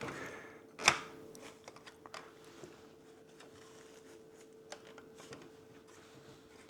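Plastic window bird feeder parts being handled during assembly: a sharp click about a second in, then a few faint taps and clicks.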